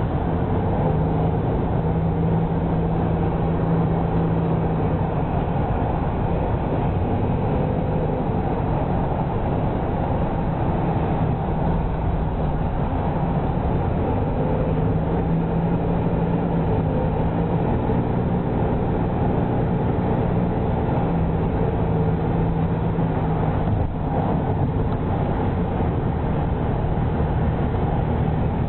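Steady road noise inside a moving car: tyre and engine hum with a low drone that shifts slightly in pitch now and then.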